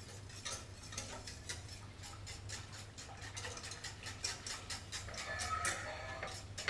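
A utensil stirring a thickening flour sauce in a metal saucepan, knocking and scraping against the pan in quick, even strokes, about four clicks a second.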